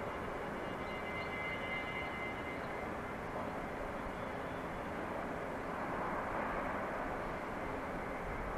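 Steady outdoor background noise, a low rumble and hiss, with a faint high whine in the first couple of seconds.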